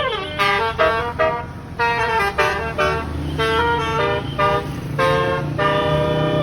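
A tour bus's basuri 'telolet' multi-note horn playing a melody: a run of short toots stepping from note to note, with the pitch sliding down as a note dies away at the start and again at the end. The bus's engine runs underneath in the second half.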